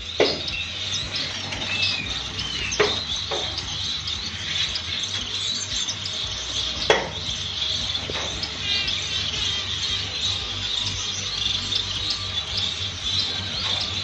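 Many caged finches, zebra finches among them, chirping and calling together in a continuous high chatter over a steady low hum, with a few sharp knocks against the cage.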